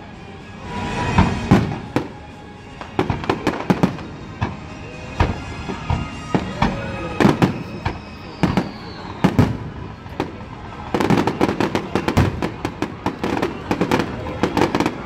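Aerial fireworks shells bursting: single bangs a second or so apart, turning into a rapid barrage of bangs and crackling from about eleven seconds in.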